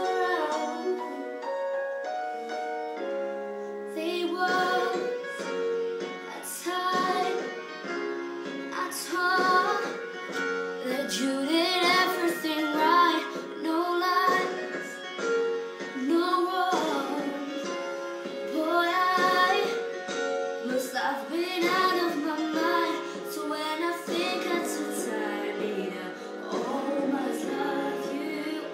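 A young girl singing a song solo over instrumental accompaniment.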